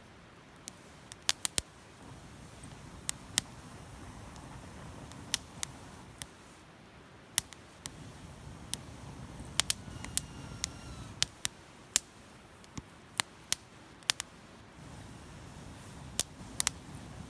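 Wood fire crackling: irregular sharp pops and snaps, some loud, over a low steady rumble of burning.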